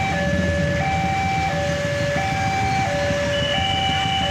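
Railway level-crossing warning alarm: two electronic tones, one high and one low, taking turns and each held for under a second, about three times over. A steady low rumble of road traffic lies beneath it.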